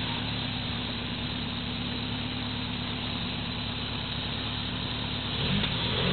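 Off-road 4x4 truck's engine idling steadily, its note rising slightly near the end.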